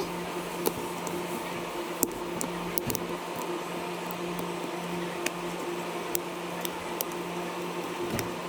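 A steady electrical or fan hum with about nine light, sharp clicks scattered through it, the sound of small tools working on a phone during a display repair.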